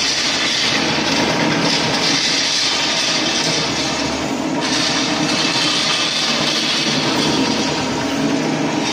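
Electric floor grinding machine running steadily, grinding a wet terrazzo floor, with a continuous hissing grind. The higher part of the hiss eases for about half a second around four seconds in, then returns.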